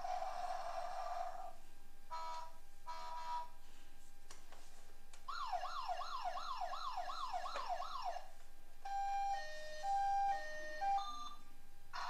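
Toy ambulance's siren sounding through its small speaker as its buttons are pressed, switching between siren sounds: a short stuttering tone, then a fast rising-and-falling yelp about three sweeps a second, then a two-tone hi-lo siren near the end.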